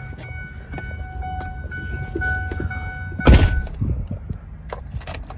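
A single heavy thump about three seconds in, inside a truck cab as someone climbs in, with handling noise around it.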